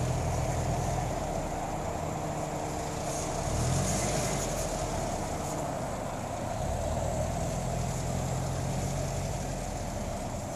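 Subaru Legacy GT's flat-four engine running at low revs as the car drives slowly over a rutted dirt and grass trail, heard from inside the cabin, with the engine hum shifting a little in pitch over a steady rumble of tyres and body.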